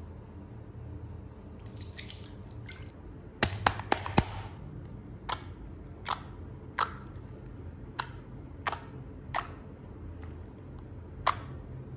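Wet, sticky pops and drip-like clicks from over-watered slime being handled: a quick cluster of them, then single pops every second or so.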